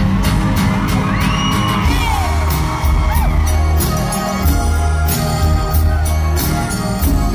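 Live band playing on stage, with electric bass and drums to the fore and a steady beat. Audience whoops and whistles rise over the music between about one and two and a half seconds in.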